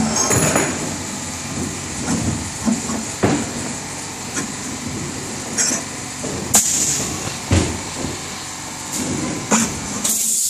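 Short knocks and clinks of steel machine parts being handled and set against a stainless steel frame while a piston rod is fitted, a few separate knocks over a steady background hiss.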